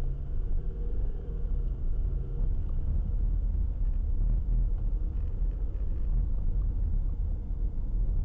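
A car's engine and tyre rumble heard from inside the cabin while driving. An engine hum stands out for the first two seconds or so as the car pulls through the turn, then a steady low road rumble carries on.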